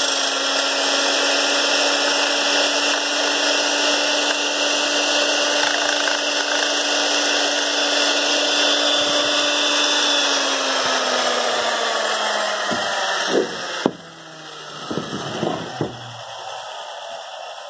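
Electric sheet-metal shear running steadily and smoothly at full speed. About ten seconds in it is switched off and its motor winds down with a falling hum, followed by a few clunks as the tool is set down.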